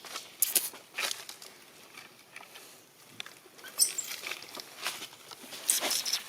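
Macaques moving and foraging close by: irregular soft rustles and light clicks, with the loudest bursts about half a second in, near four seconds and near the end.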